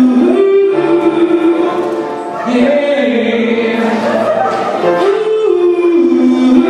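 A man sings long held notes into a microphone, with live piano accompaniment.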